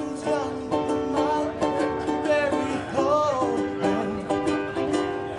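Live acoustic band music: strummed string chords in a steady rhythm under a sung melody line.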